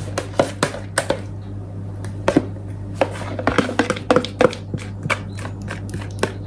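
A metal spoon clicking and scraping against a plastic measuring jug as porridge mixture is stirred and then scraped out into a bowl. The clicks come many times, irregularly, over a steady low hum.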